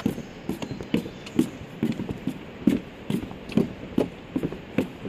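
Footsteps walking along a path at an even pace, about two steps a second.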